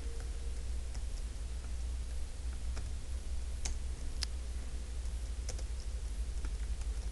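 Computer keyboard being typed on at an unhurried pace, a scattering of separate key clicks over a steady low hum.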